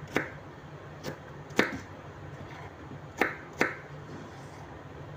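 Kitchen knife cutting garlic cloves on a wooden cutting board: about five sharp, irregularly spaced knocks of the blade against the board.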